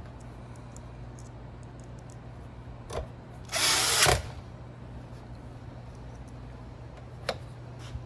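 Cordless drill-driver runs once for about half a second, about halfway through, driving a screw into the sheet-metal blower housing, with its pitch rising as it spins up. A single click comes just before it and another near the end.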